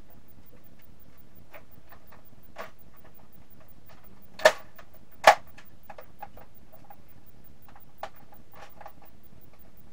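Plastic clicking and clacking from a Nerf Demolisher 2-in-1 blaster being handled, with two sharp, louder clacks under a second apart about halfway through.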